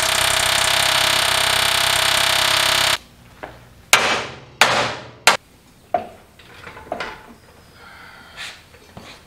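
Pneumatic air hammer chisel rattling steadily against a steel frame rivet as the factory rivets are cut out, stopping abruptly about three seconds in. Then three ringing hammer blows on the steel crossmember, about two-thirds of a second apart, followed by a few lighter knocks.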